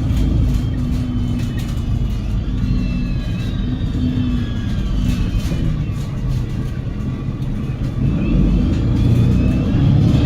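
Double-decker bus with a Cummins L9 diesel engine and Voith DIWA automatic gearbox, heard from inside while driving: a low engine rumble under a thin high whine that glides up and down in pitch. The bus picks up a little in loudness near the end.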